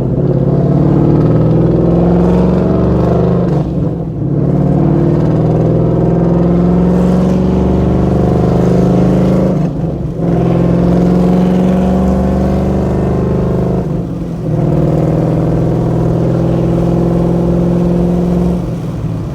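Straight-piped 5.0 V8 exhaust running loud under load while the car is driven, with three brief dips as the driver shifts gears, then easing off near the end.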